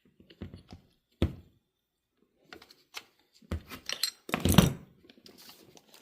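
Handling knocks and clicks of a small corded cut-off tool and its disc being turned over and fitted. A sharp knock comes about a second in, and a louder cluster of knocks and rattles past the middle.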